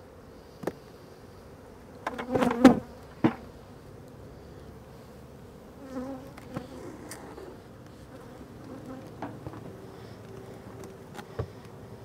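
Honeybees from a disturbed colony buzzing in flight, a steady hum with bees passing close now and then; the loudest stretch, about two to three seconds in, is a loud close buzz mixed with sharp clicks. A few short knocks from handling gear break in later.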